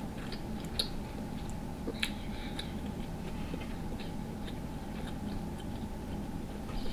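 Close-miked chewing of soft, sauce-drenched food, with scattered small wet mouth clicks; two sharper clicks come about one and two seconds in.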